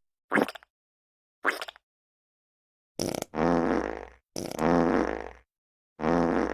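Fart sound effects played one after another with dead silence between them: two short blasts, then three longer pitched ones of about a second each.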